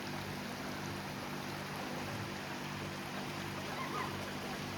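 Waterfall and stream water rushing, a steady even wash of noise.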